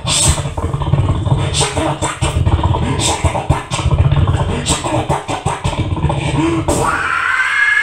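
A man's voice doing extreme vocal noises: rapid guttural growls and grunts broken by sharp mouth clicks. About seven seconds in it turns into a scream that slides upward and holds one high, steady pitch.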